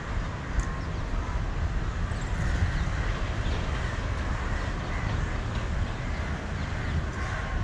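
Steady outdoor city background: a low rumble of distant traffic with faint bird calls over it.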